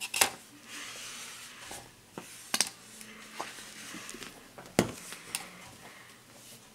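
A handful of sharp clicks and taps from a plastic squeeze bottle of paint and a paintbrush being handled over a foam plate, the loudest just after the start and about five seconds in, over faint room noise.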